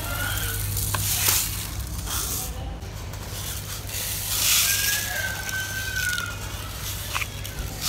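Dry play sand poured into plastic sand toys and trickling through a toy sand wheel, with a rush of pouring about a second in and a longer one at about four and a half seconds.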